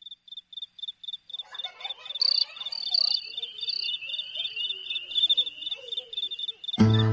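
Cricket chirping steadily in regular pulses, about five a second, with other fainter calls joining about a second and a half in. Acoustic guitar music starts near the end.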